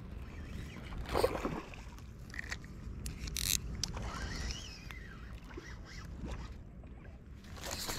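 Spinning fishing reel being cranked by hand, in a few short bursts.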